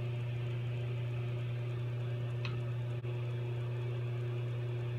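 Steady hiss of a glassworking torch flame, burning evenly with a low steady hum underneath.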